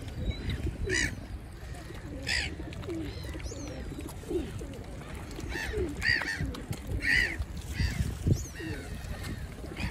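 A mixed flock of gulls and feral pigeons at a feeding spot: gulls give harsh, high cries several times, loudest about a second in, around two and a half seconds in, and twice between six and seven seconds. Pigeons coo low and repeatedly underneath.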